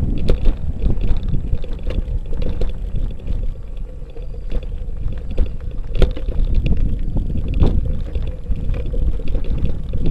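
Element Pikes folding bike rattling and knocking as it rides over a rough dirt track, with frequent short knocks over a steady low rumble of wind on the microphone.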